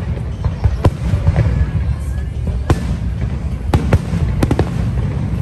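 Aerial fireworks shells bursting overhead: about six sharp bangs, some in quick pairs, over a steady low rumble.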